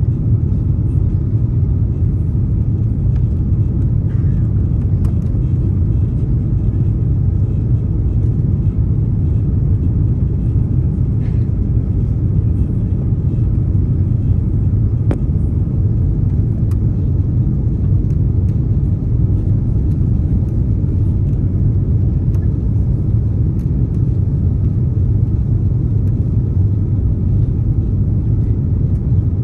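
Steady low rumble of Airbus A330-300 cabin noise, engines and airflow, heard from inside the passenger cabin, with a few faint ticks.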